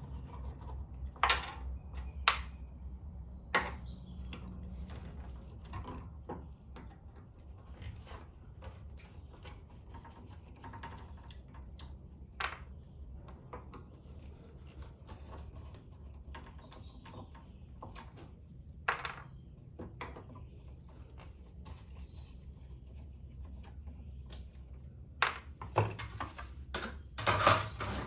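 Irregular knocks and clicks of a hand saw and tools being handled on a workbench, a few sharp ones spread through and a quick cluster near the end, over a low steady hum.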